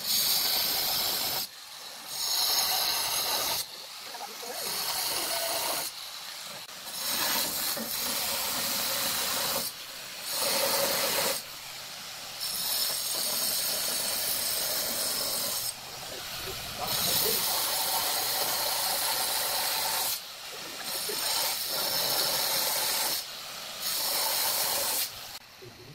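Handheld electric angle grinder with a stone grinding disc working wet granite, giving a steady high hissing grind. It breaks off briefly every few seconds and starts again.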